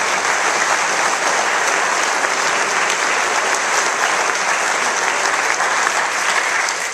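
Audience applauding, steady and dense throughout.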